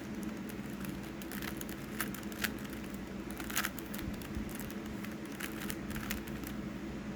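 Rubik's Cube faces being turned by hand, a series of short, irregular plastic clicks and rustles, over a steady low electrical hum.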